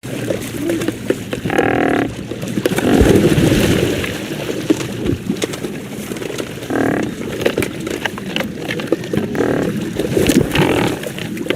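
Great white pelicans giving low, moo-like grunting calls: a few short pitched calls, one about a second and a half in, one near the middle and two near the end, with a louder low rumbling grunt a few seconds in and scattered clicks throughout.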